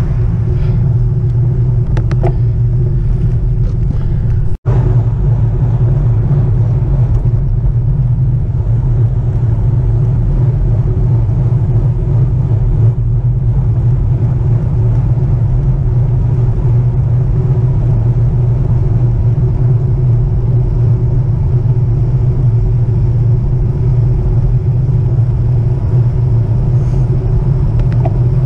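Loud, steady rumble of wind buffeting a bike-mounted camera's microphone, mixed with the tyre and road noise of a road bicycle riding at speed. The sound drops out for an instant about four and a half seconds in.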